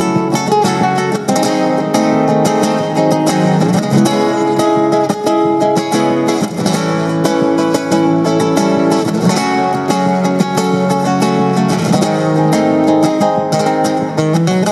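Background music: acoustic guitar in a flamenco style, with quick plucked and strummed notes.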